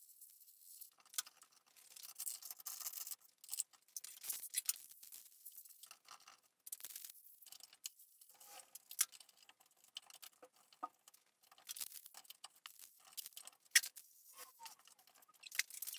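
Handheld steam cleaner spraying steam: faint hissing and crackling spitting in short, irregular spurts with brief pauses between them.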